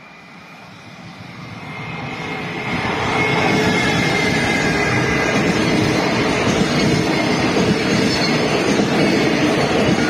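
Electric freight train approaching and passing close by. The rumble grows loud over the first three seconds or so, with a faint high whine, then settles into the steady rumble and clatter of container wagons' wheels on the rails.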